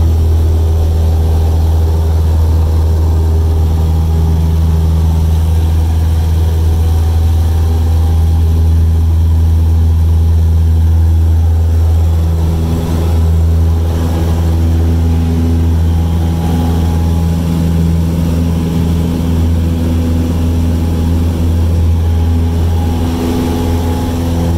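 Cessna 172 Skyhawk's piston engine and propeller droning steadily, heard from inside the cabin in flight, the note shifting slightly about halfway through.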